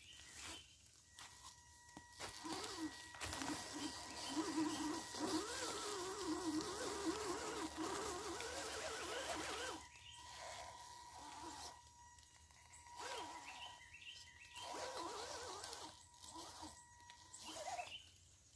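Electric motor and gears of a 1/12-scale CR12 Tioga RC crawler whining as it climbs, the pitch wavering up and down with the throttle. It is loudest from about three to ten seconds in, then drops to quieter bursts.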